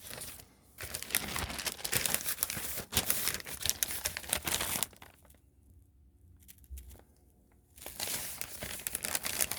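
Crinkling, rustling handling noise, in two spells of a few seconds each with a quiet gap between.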